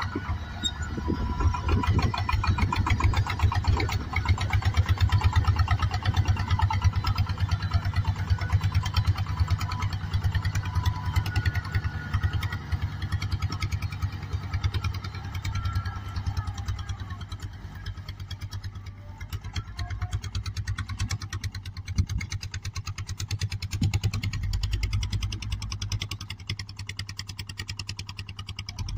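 Kubota M5000 tractor's diesel engine running steadily under load as it drives a rotary puddler through a flooded rice paddy, with a fast even engine beat. A higher whine sits over the engine for about the first half, and a deeper rumble swells near the end.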